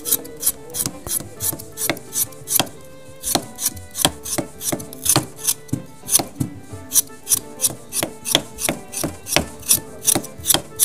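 Small knife cutting through a raw potato held in the hand, peeling it stroke by stroke. Each stroke is a crisp cut, about three a second in an even rhythm.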